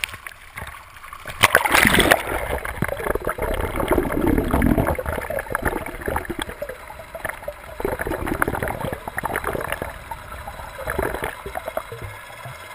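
Water splashing hard over a GoPro's waterproof housing as the towed dive board breaks through the surface, loudest about two seconds in, then a continuous rushing and gurgling of water streaming past the submerged camera as it is pulled along.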